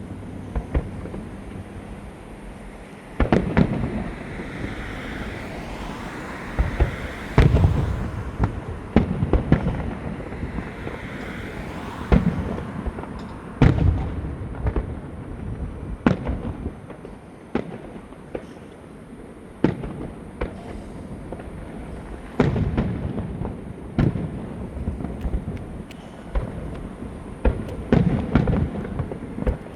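Fireworks going off: a long run of sharp bangs and booms, some single and some in quick clusters, spread a second or two apart.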